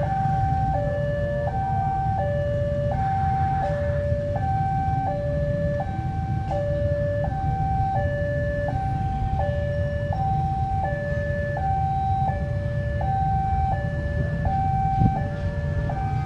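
Railway level-crossing warning alarm sounding an even two-tone signal, a higher and a lower tone alternating, each held under a second, which warns that a train is approaching. Under it runs a low steady rumble.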